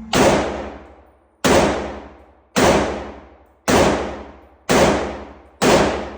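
Six single shots from a Century Arms Draco AK-pattern pistol, fired at a steady pace of about one per second. Each shot is a sharp, loud crack that trails off over about a second before the next.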